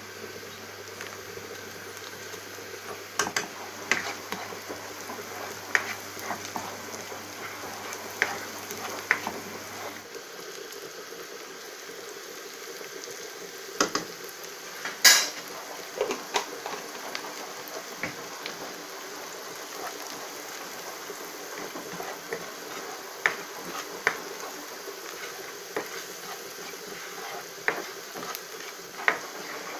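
Onions and green chillies sizzling in oil in a non-stick frying pan, with a spatula scraping and knocking against the pan as they are stirred. The loudest knock comes about halfway through.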